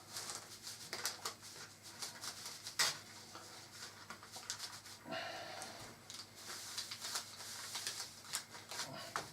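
Paper-like rustling and crinkling of adhesive puzzle-gluing sheets and cardboard jigsaw pieces being handled and pressed down, with scattered light clicks and taps and one sharper tap about three seconds in.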